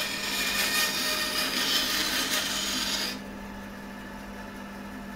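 Bandsaw cutting through a juniper spatula blank, a loud, even hiss that stops abruptly about three seconds in as the cut finishes. The saw then runs on alone with a steady low hum.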